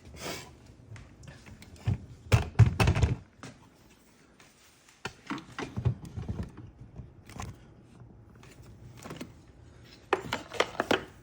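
Small metal parts and tools clicking and clattering on a workbench in scattered bursts while a lock cylinder is worked on, with the loudest cluster about two to three seconds in and another near the end.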